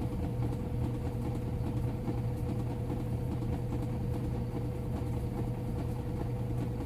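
Samsung washing machine in its spin cycle, spinning at a steady speed with a constant low hum and a steady whine above it, not yet speeding up.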